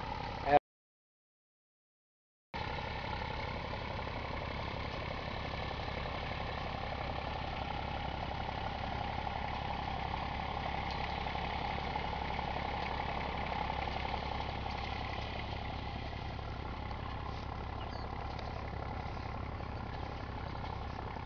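IMT 539 tractor's three-cylinder diesel engine running steadily under load as it pulls a harrow in second gear. The sound drops out entirely for about two seconds near the start.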